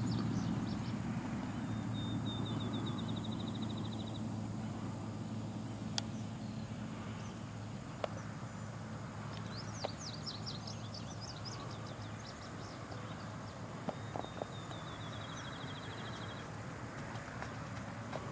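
Rural outdoor ambience: a low steady rumble, with birds chirping in two bursts and a rapid high trill heard twice. A few faint isolated knocks.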